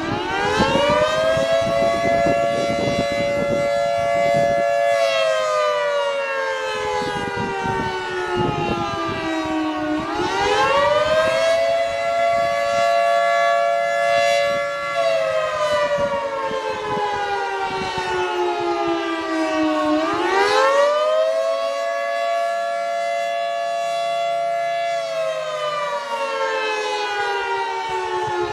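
Federal Signal 2T22 dual-tone outdoor warning siren sounding the Attack (civil defense) signal. It is a slow wail that winds up quickly over about a second, holds for about four seconds, then slides down over about five seconds before winding up again, three times in all. A second, fainter siren, the Federal Signal Thunderbolt 1000T farther off, wails underneath.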